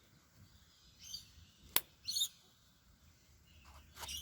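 Faint bird chirps in short bursts, with one sharp click a little under two seconds in.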